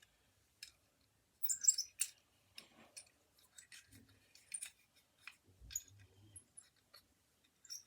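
Irregular small clicks and rattles as a jack-in-the-box toy is handled, louder for a moment about two seconds in.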